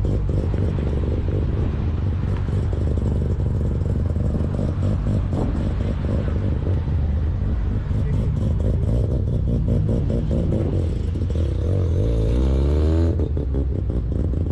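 Mazda RX-7's rotary engine idling with a choppy, uneven brap, then revving up with a rising pitch about eleven seconds in before dropping off suddenly.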